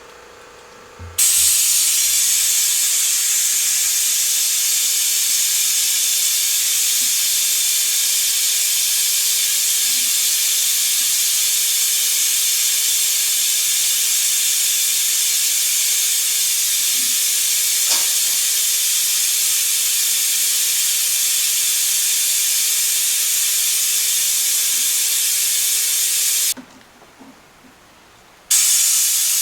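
Pneumatic vacuum brake bleeder running on compressed air, a loud steady hiss as it draws fluid and air out of the front brake system. The hiss stops near the end for about two seconds, then starts again.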